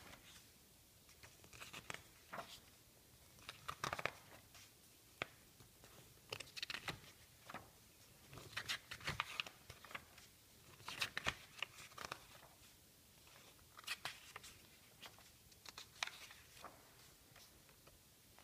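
Magazine pages being turned by hand, each turn a short burst of paper rustling and flapping, about every two seconds.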